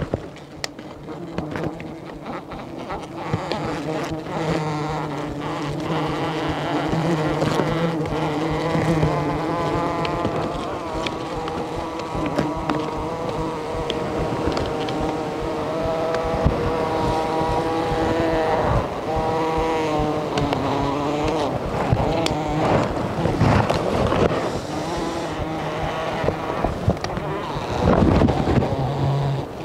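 A colony of wild honeybees buzzing loudly in a droning hum that drifts up and down in pitch, stirred up by a smoking leaf torch held under their open comb. Rustling of leaves and the protective suit runs through it.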